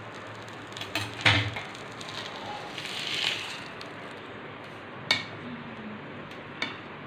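Metal spatula clinking and scraping against a frying pan and a plate as a burger is lifted out and set down. There are a few sharp clinks: two about a second in, the loudest, and two more later on.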